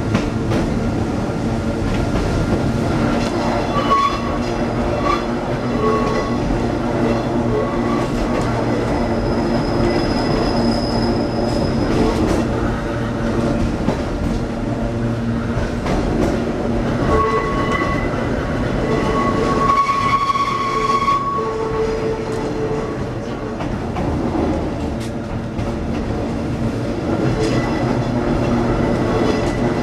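Hakone Tozan Railway electric car Moha 114 running, heard from inside the cab: a steady rumble of motors and wheels on the rails, with short high-pitched squeals a few seconds in and again past the middle.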